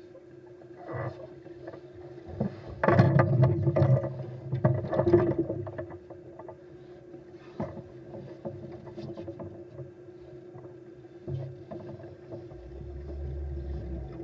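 Underwater recording: a steady hum all through, with a loud stretch of rushing water noise from about three to five seconds in, scattered clicks, and a low rumble near the end.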